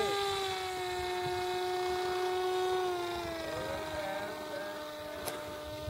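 Electric motor and propeller of a radio-controlled model airplane running with a steady whine, its pitch dropping about halfway through and then holding.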